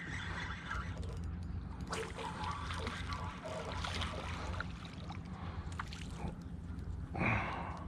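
Small red drum splashing and water trickling as it is reeled in to the bank, with scattered light clicks, over a steady low hum. A brief voice sound comes near the end.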